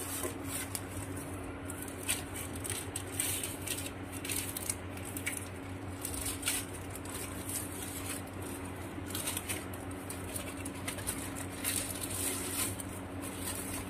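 A mother dog licking her newborn puppy clean: an irregular run of quick wet licking clicks, over a steady low hum.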